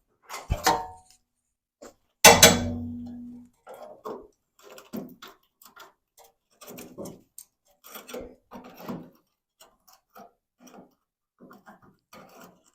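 A loud metallic clang about two seconds in that rings on for about a second, after a sharper knock just before it, then irregular light tapping and scraping on metal.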